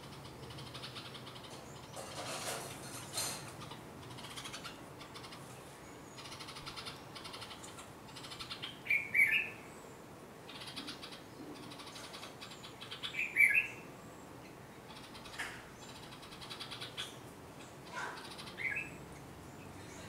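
Red-vented bulbul giving short, sharp alarm calls in three brief bursts a few seconds apart, with fainter chirps in between: scolding at an intruder near its nest.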